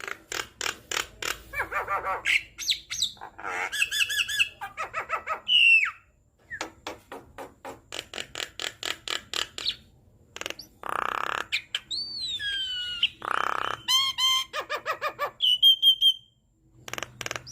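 Javan myna singing a busy, varied song full of mimicked fragments: fast runs of clicking notes, harsh rasping calls, and clear whistles, one sliding down in pitch near the two-thirds mark.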